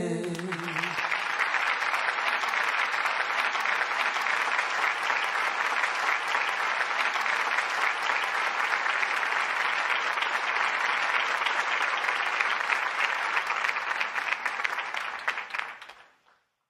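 Crowd applause, a dense steady clapping that fades out near the end; a sung note dies away in the first second.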